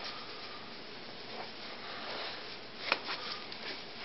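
Faint rustling of a hand puppet being handled, over a steady low hiss, with one sharp click about three seconds in.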